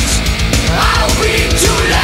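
Loud heavy-rock music with a driving beat.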